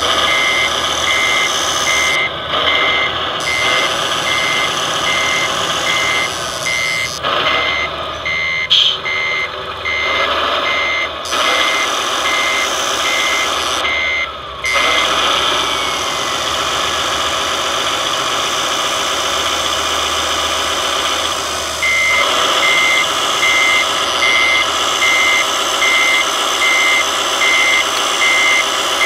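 RC hook-lift truck with an onboard sound unit and hydraulics, running steadily while a back-up warning beeper sounds about one and a half times a second as the hook arm loads a container. The beeping stops for several seconds past the middle, then starts again.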